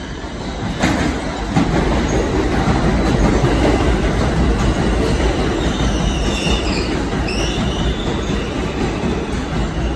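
An R160 subway train running into the station along the platform: a steady rumble of steel wheels on the rails, getting louder over the first second, with two sharp clacks in the first two seconds. High-pitched wheel squeal comes in about halfway through.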